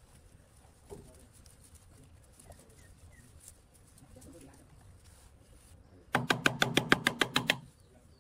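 Ratchet wrench clicking rapidly while undoing the muffler bolts, about a dozen sharp clicks in a second and a half near the end, after faint tool-handling noises.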